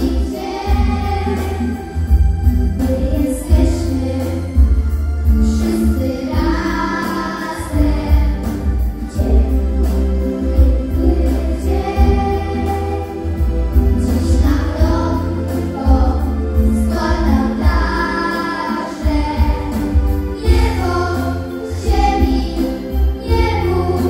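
A group of children singing together into microphones, over music with a heavy, pulsing bass.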